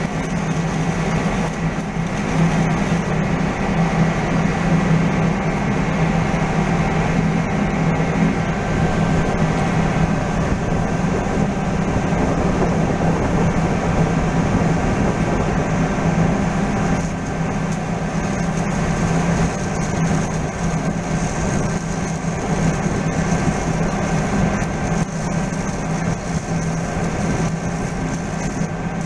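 Steady, loud machinery drone with a low hum and some faint high whines, running without a break.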